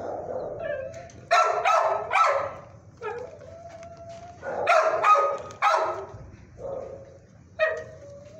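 A dog barking in sharp bursts, two quick runs of three barks, with a long held howl between them and a single bark near the end.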